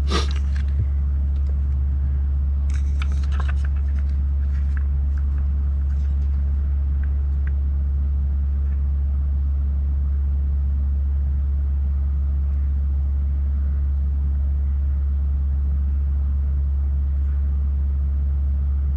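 A steady low hum runs throughout. A few faint rustles and light taps come in the first six seconds or so, like a parcel and its packing being handled.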